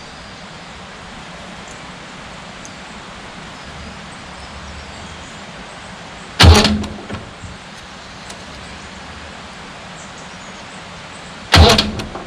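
Fordson Major diesel engine being bumped over briefly on the starter, twice, about five seconds apart. Each burst is short and loud, starts sharply and dies away within about a second, turning the engine on to the next valve position for tappet setting.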